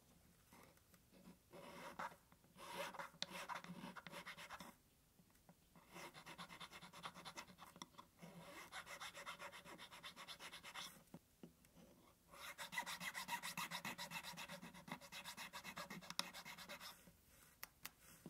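Needle file rasping back and forth in a narrow slot in a small wooden piece, in three spells of quick, even strokes with short pauses between them.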